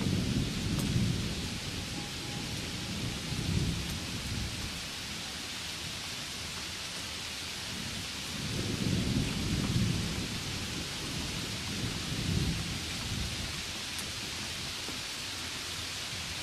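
Heavy rain falling steadily, a constant hiss, with several low rumbles that swell and fade: about a second in, around four seconds, a longer one around nine to ten seconds, and a shorter one around twelve seconds.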